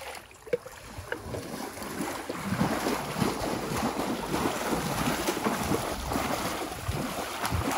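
Shallow muddy river water splashing and churning as a wading man beats it with his arms around mangrove roots, flushing out shrimp for bait. It starts softly and grows into steady heavy splashing about two seconds in.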